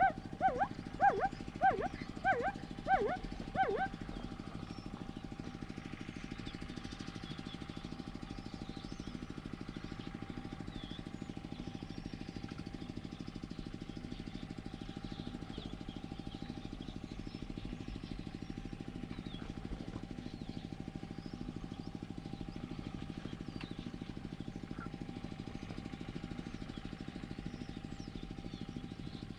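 An animal gives about seven short calls in quick succession in the first few seconds, each call dropping in pitch. After that a steady low hum carries on, with faint bird chirps above it.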